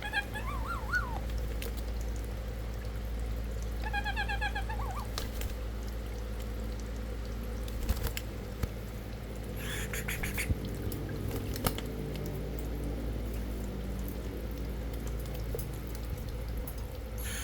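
Black-headed caique calling: a short wavering call at the start, a quick run of chirps about four seconds in, and a brief call around ten seconds, with a few sharp clicks in between.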